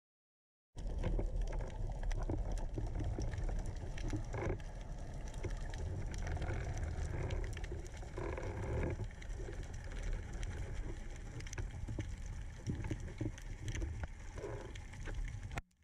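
Muffled underwater sound through an action-camera housing: a low rumble of water moving past the camera, with scattered clicks and crackles. It starts abruptly about a second in and cuts off suddenly near the end.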